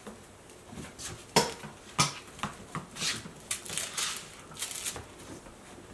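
Scattered knocks and clicks on a hardwood floor from footsteps and a West Highland White Terrier puppy playing among its toys: two sharp knocks about a second and a half and two seconds in, then a quicker run of lighter clicks.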